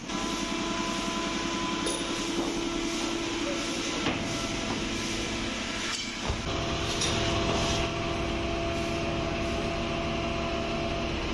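Workshop machinery running steadily: a held whine over a fast, even rattle. The low rumble gets heavier about six seconds in.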